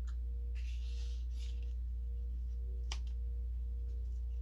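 Soft rustling of paper scraps being shifted about on a journal page, with one sharp tick about three seconds in, over a steady low hum and a faint higher tone.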